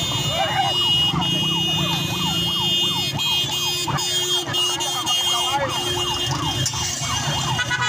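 Emergency vehicle siren in a fast yelp, its pitch sweeping up and down about three times a second, over a steady low engine rumble.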